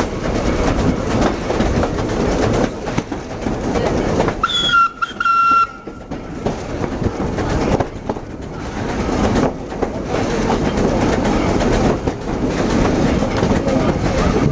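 Heritage steam train heard from aboard a carriage: steady running rumble with wheels clacking over rail joints. About four and a half seconds in, a steam whistle gives two short toots.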